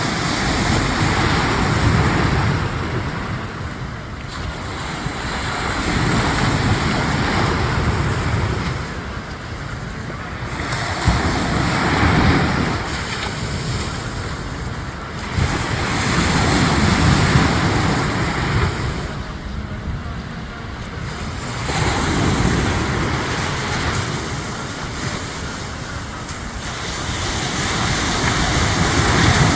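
Surf on a beach: waves breaking and washing in, swelling and fading about every five seconds, with wind rumbling on the microphone.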